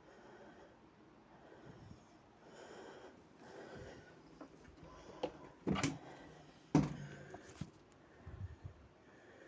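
A mini fridge being handled: faint rustling, then a few sharp knocks and clunks around the middle. The loudest is a low clunk with a brief ringing about two-thirds of the way through.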